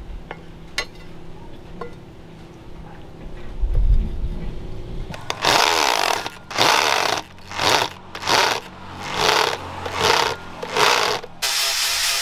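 Electric drill driving a screw into a wooden knife-handle scale in a run of about seven short bursts, the motor speeding up and stopping each time. A few light clicks and knocks come before the drilling. Near the end an angle grinder with a sanding pad starts and runs steadily.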